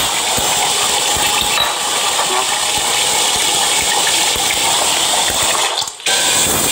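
Steady rushing of running water that dips out briefly about six seconds in, then comes back.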